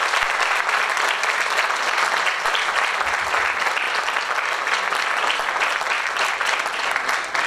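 Audience applauding, a dense, steady clapping that eases slightly near the end.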